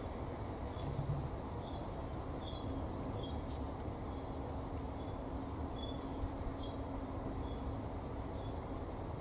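A small bird chirping over and over, short high notes about twice a second, over a steady low background noise.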